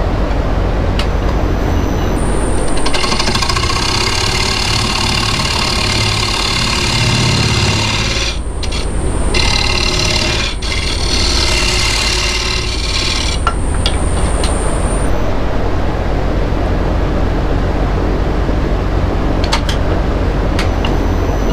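Wood lathe running with a steady low hum; from about two seconds in until about fifteen seconds a tool works the wood, adding a scraping noise and a thin high whine, with two brief breaks in the middle.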